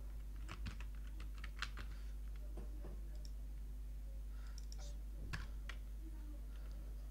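Computer keyboard typing: faint, irregular keystrokes in short runs, as a word is typed into a code editor and then deleted.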